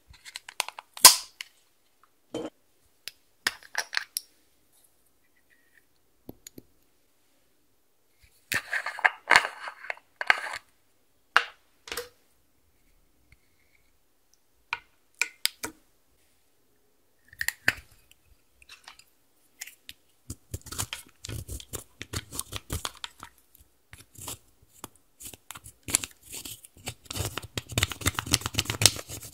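Scattered clicks and taps of small plastic containers and tools being handled, then, from about twenty seconds in, a dense run of scratching as pressed eyeshadow is scraped and crumbled out of its pan with a plastic stick.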